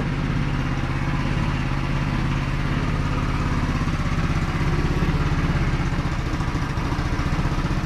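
Single-cylinder four-stroke GY6 150cc scooter engine idling steadily.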